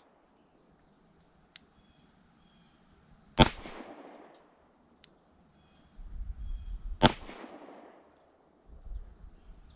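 Two shots from a Springfield Armory Prodigy 9mm pistol, about three and a half seconds apart, each a sharp crack that rings on briefly.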